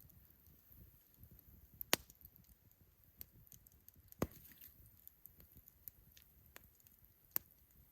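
Wood campfire crackling quietly: scattered faint ticks, with sharp pops about two seconds in, just after four seconds and near the end.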